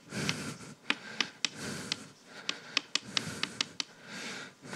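Chalk writing block capitals on a blackboard: short scratchy strokes broken up by a dozen or so sharp taps as the chalk strikes the board.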